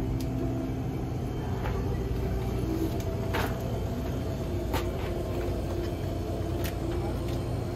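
Steady low hum of store ambience, with a few sharp clicks and knocks as goods are handled on the shelves.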